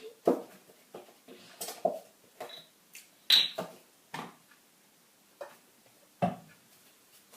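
Kitchen clatter of a pan and utensils being handled: about a dozen separate knocks and clinks, one a little past three seconds in with a brief ringing tone.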